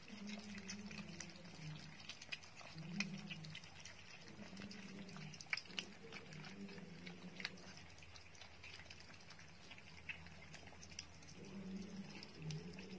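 A litter of puppies eating wet rice from a shared basin: faint wet chewing and lapping with many small irregular clicks, and now and then a low murmur or grunt.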